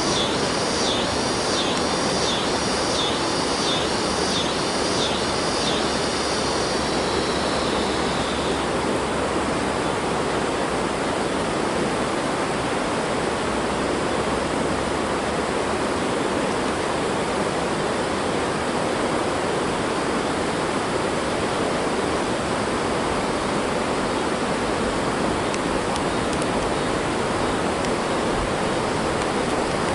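A steady rushing noise at an even level throughout. Over the first eight seconds an insect's high pulsing call repeats about one and a half times a second, then fades out.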